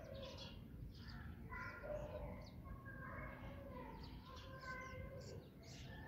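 House sparrows chirping, a busy run of short, high chirps from several birds.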